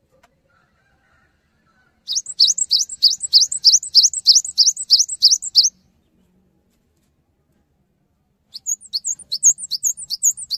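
Cinereous tit (gelatik batu) singing in two runs of rapidly repeated high notes. The first starts about two seconds in: rising notes at about four a second for three and a half seconds. The second comes near the end and is a quicker run of differently shaped notes.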